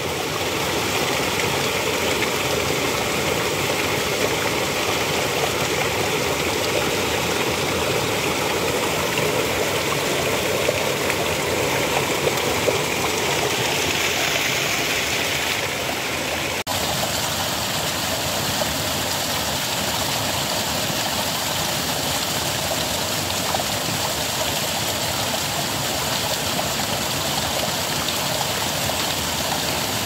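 Water gushing steadily from a pipe outlet and splashing onto rocks into a shallow pebbly stream, a constant rushing splash. It drops out for a moment just past halfway, then carries on much the same.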